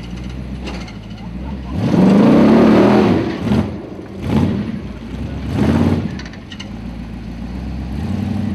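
Formula Offroad car's engine revved hard under load: one long rev that rises and falls about two seconds in, then three shorter blips, with a steady rumble between and after.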